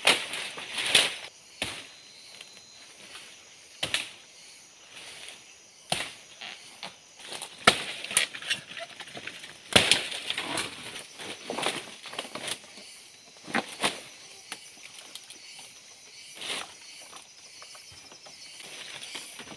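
Dry palm fronds and sticks being handled and trodden on underfoot: irregular rustles, crackles and sharp snaps.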